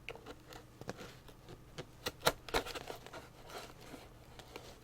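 The seal on a product box being cut and pulled open: scratching and scraping with several sharp clicks.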